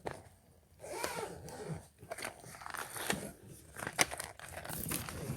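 Crinkling and crackling of packaging being handled, with scattered sharp clicks and faint murmured voices.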